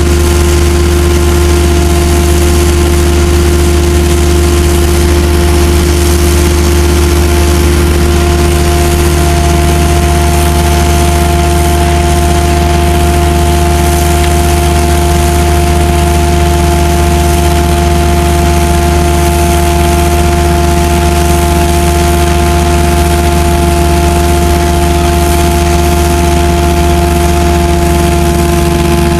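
Jetting-and-vacuum equipment running its water jetter and vacuum together: a loud, steady machine drone with a low hum, a steady whine and a hiss over it.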